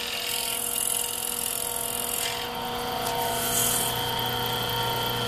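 Wood lathe running with a steady motor hum while a hand-held turning tool cuts the face of a spinning horn disc, the cut heard as a hissing scrape that comes and goes in two long passes.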